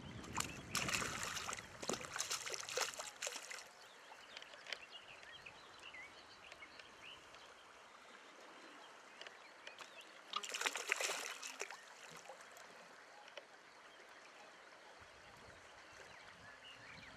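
A landed fish thrashing and splashing in shallow water at the bank's edge: a burst of about three seconds at the start, then a shorter one a little past the middle.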